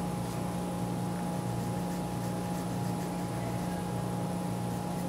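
Steady low hum with an even hiss, unchanging throughout. No clear pencil scratching stands out above it.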